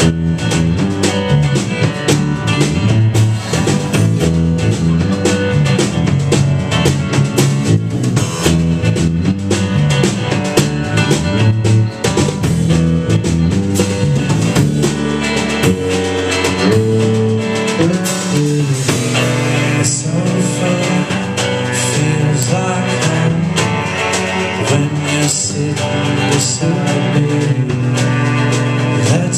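A small band playing a song live, with strummed acoustic guitar, electric guitar and upright bass. It starts suddenly and runs on loud and steady.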